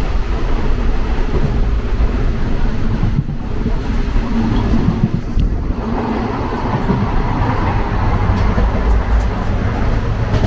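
Steady rumble and rattle of an Indian Railways sleeper-class coach running along the track, heard from inside the coach.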